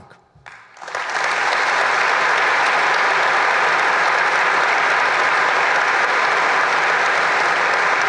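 An audience applauding, swelling within the first second and then steady.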